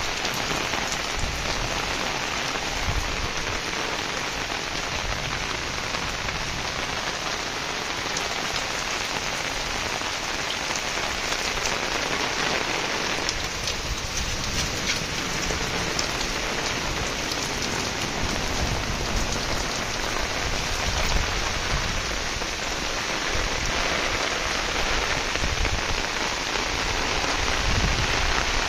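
Heavy rain falling steadily: a continuous hiss of the downpour, dotted with the ticks of individual drops striking close by.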